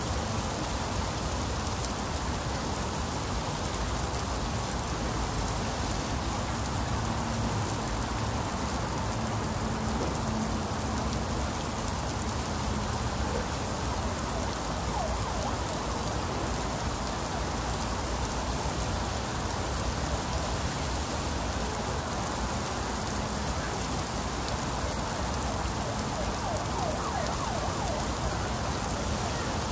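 Very heavy rain falling steadily on clay-tile roofs and muddy ground, an even, unbroken hiss of rain.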